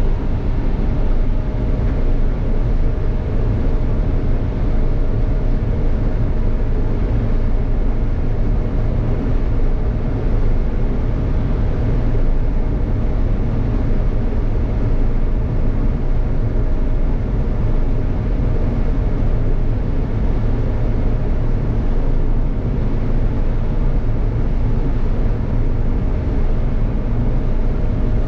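Combine harvester running steadily while harvesting corn, heard from inside the cab: an even low machinery drone with a faint steady whine above it.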